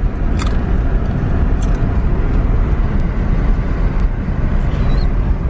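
Car cabin road noise while driving: a steady low rumble and hiss of engine and tyres, with a few light clicks.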